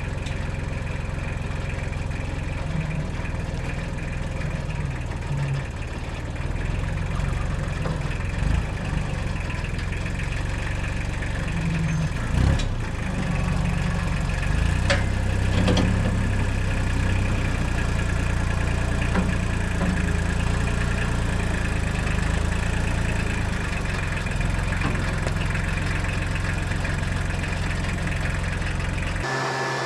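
An engine idling steadily, with a few knocks over it about 8, 12 and 15 seconds in. It cuts off abruptly near the end.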